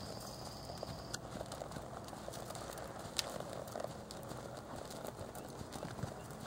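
Hoofbeats of a palomino Quarter Horse gelding jogging on soft arena dirt, with a high steady whistle-like tone in the first second and a single sharp click about three seconds in.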